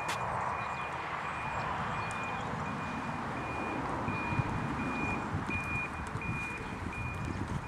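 A vehicle's reversing alarm beeping steadily, a little more than once a second, over a low rumble.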